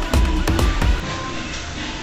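Electronic background music with a heavy, regular beat, which cuts off about a second in, leaving a quieter, even background.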